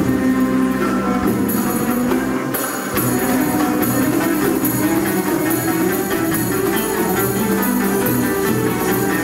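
Turkish classical music ensemble playing an instrumental passage, with violins and clarinet, no voice singing.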